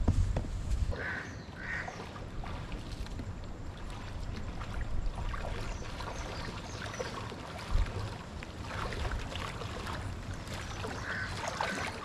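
Footsteps wading through shin-deep water, splashing and sloshing with each step, with wind rumbling on the microphone in the first second or so.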